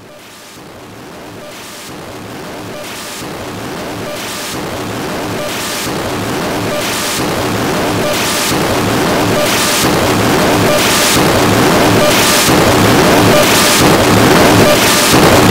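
Harsh digital noise music: a dense wall of noise fading in and growing steadily louder, with a hissing surge about every second and a half and a pulsing low throb underneath.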